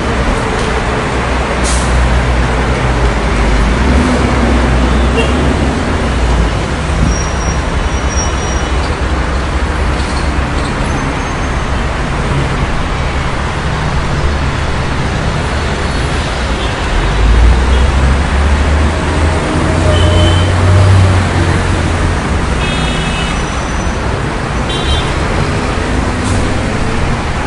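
Busy city street traffic: a steady wash of car, bus and truck engines and tyres, with heavier vehicles rumbling past about 17 and 20 seconds in and short high brake squeals here and there.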